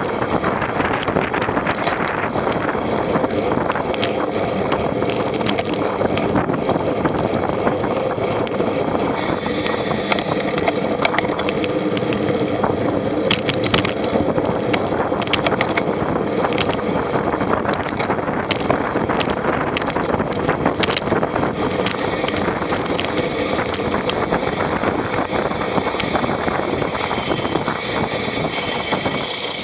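A vehicle running steadily, a dense rumbling noise with a faint steady hum, scattered sharp clicks and knocks, and wind on the microphone.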